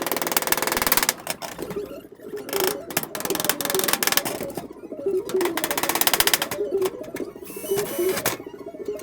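Background music with a fast, clicking rhythm and short melodic notes.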